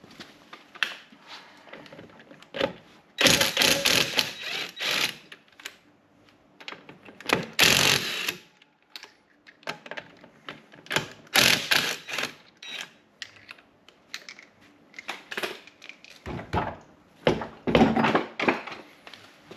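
Irregular clattering and knocking of hand tools and metal car parts being handled, coming in several loud spells of rapid knocks and rattles.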